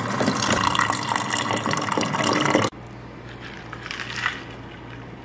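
Water running from a water dispenser into a stainless-steel water bottle, a steady splashing fill that cuts off abruptly about two and a half seconds in. After that there is only a low steady hum and a few faint small sounds.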